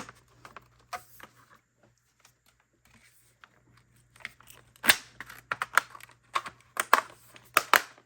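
Plastic cover of a battery LED light tube being pinched into its track: a few small clicks at first, then from about halfway a quick run of sharp plastic clicks and snaps as it seats.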